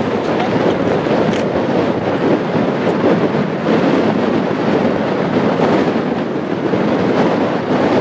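Wind buffeting the microphone: a loud rushing noise that swells and dips.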